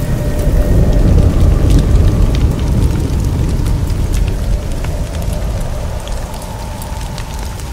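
Cinematic logo-reveal sound effect: a heavy low rumble with scattered fiery crackles, swelling over the first second or two and then slowly dying away.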